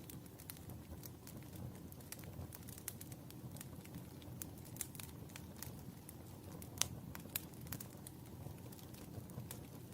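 Wood fire burning in a fireplace: a steady low rumble of the flames with irregular sharp crackles and pops, the loudest pop a little under seven seconds in.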